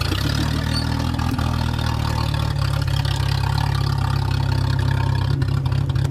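Engine of a modified Suzuki 4x4 off-road truck running steadily as it crawls along a dirt slope.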